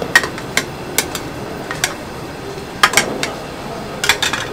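Metal ladle clinking and knocking against a soup bowl and the rim of a large aluminium broth pot while broth is ladled into the bowl. About ten sharp knocks come in small clusters over a steady hiss.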